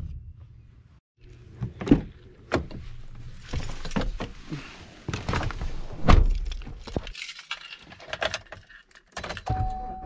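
Keys jangling and a string of knocks and clunks as someone climbs into a Chevrolet Silverado pickup cab, with a heavy door thunk about six seconds in. A steady single tone starts near the end.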